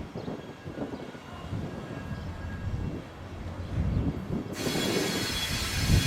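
Railway coaches rolling slowly over track with a low, uneven rumble. About four and a half seconds in, a steady hiss sets in suddenly over it.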